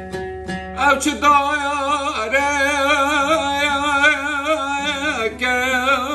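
A man singing a long, ornamented mawal phrase with a wavering melody over an oud; a new phrase begins about five seconds in.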